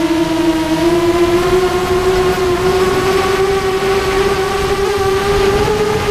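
Motor and propeller of a model aircraft heard from its onboard camera: a steady high whine that climbs slowly in pitch as the throttle is opened up, with air rushing past.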